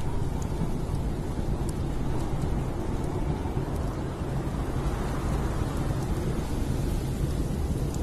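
Steady storm ambience: a low wind rumble under an even hiss, with a few faint crackles from a wood fire.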